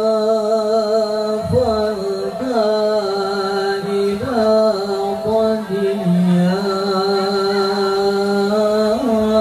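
A solo male voice singing an Islamic devotional chant through a PA microphone, holding long notes with melismatic turns between them, with hardly any drumming.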